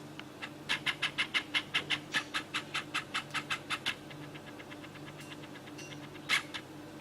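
Cockatiel making a rapid run of short, sharp notes, about six a second for some three seconds, then a fainter run, and one louder single note near the end.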